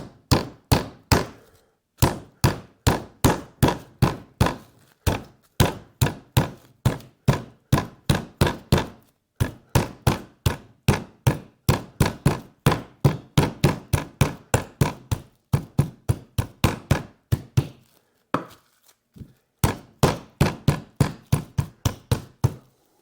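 Chicken breast being pounded flat inside plastic wrap to an even thickness: repeated sharp thuds, about three a second, with a few short pauses.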